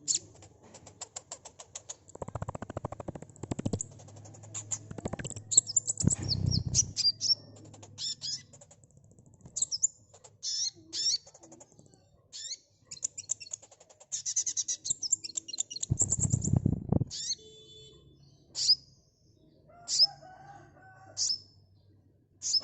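Sunbird calling: a fast, high clicking trill, then a jumble of sharp chirps and quick sweeps, ending in single sharp downward chirps about every second and a half. Three short, low fluttering bursts break in, like wingbeats.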